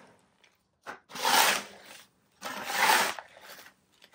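Two gritty scraping and rustling noises, about a second in and again near three seconds, each a second or less long, as the bonsai soil mix and its containers are moved aside on the work table.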